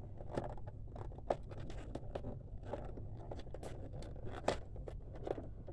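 Hard plastic toy van being fiddled with: irregular light clicks, taps and scrapes of plastic on plastic, with two sharper knocks, one about a second in and one later on, as a stuck storage compartment is worked at and won't open.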